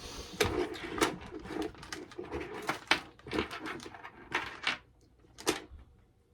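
Handling sounds of unpacking a kit's parts: rustling packaging and a string of sharp clicks and clacks, dying down after about five seconds.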